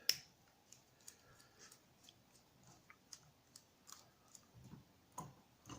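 Faint, scattered clicks and light taps of small metal carburetor parts and a hand tool as a part is worked out of a Mikuni carburetor. A sharper click comes right at the start, and a couple of louder knocks come near the end.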